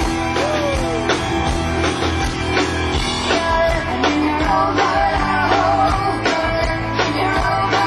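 Live rock band playing: drums keeping a steady beat of about two strokes a second under guitar, with a singing voice coming in more strongly in the second half.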